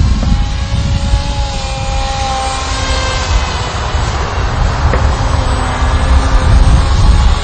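Sky Surfer RC power glider's brushless electric motor and pusher propeller whining steadily in flight, the whine shifting slightly in pitch, under heavy wind rumble on the microphone.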